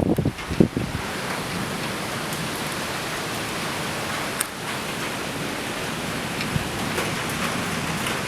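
Thunderstorm wind buffeting the microphone in loud low gusts for the first second, then the steady hiss of heavy rain with a few faint drop ticks.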